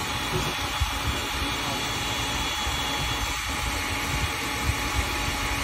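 Heat gun running steadily, its fan blowing a hot air stream onto a PVC hose to soften it for fitting onto a barb.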